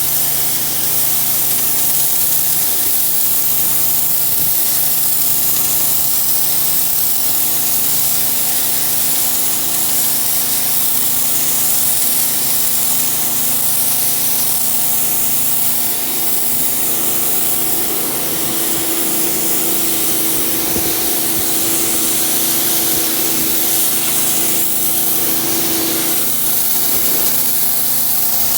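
Pressure washer spraying a steady high-pressure jet, a loud continuous hiss with a steady machine hum beneath it.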